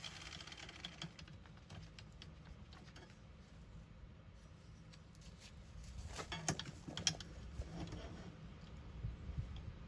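Faint clinks and knocks of metal being handled, with two sharper clanks about six and a half and seven seconds in.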